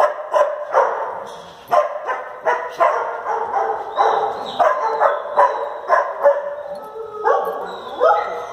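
Dogs barking over and over, about two barks a second without a break.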